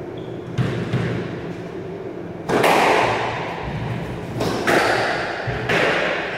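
Squash rally: the ball struck by rackets and smacking off the court walls, each hit sharp and echoing. The loudest hit comes about two and a half seconds in, with more hits every second or two.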